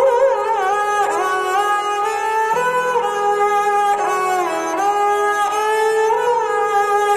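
Indian classical stringed instrument playing a slow melody of sustained notes with smooth sliding glides and wavering ornaments between pitches, over a steady low drone.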